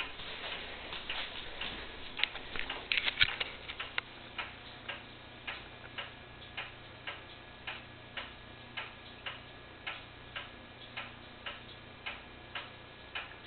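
Steady, even ticking, a little under two ticks a second. A cluster of louder clicks and knocks comes about two to three seconds in.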